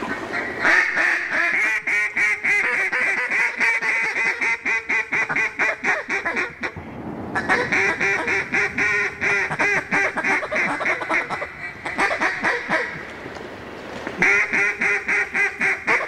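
Hunters blowing mallard duck calls in long, fast runs of chattering quacks, meant to pull circling ducks in. The calling breaks off briefly twice and starts again.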